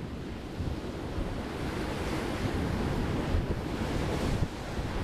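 Sea waves breaking against the shore, with wind noise on the microphone. The surf grows a little louder over the second half.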